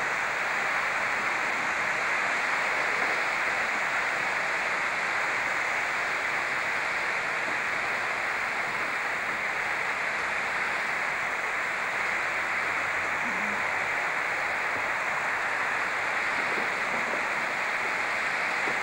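Steady, even hiss with no distinct events: the noise floor of old camcorder videotape audio.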